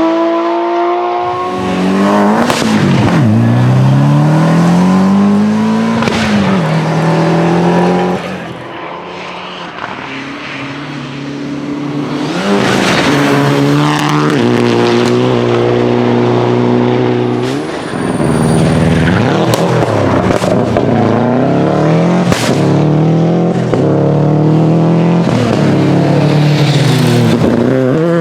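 Rally car engines at full throttle, revving up and dropping back through gear changes as the cars drive past on a special stage. The clip cuts abruptly from car to car several times, with one stretch farther away and quieter.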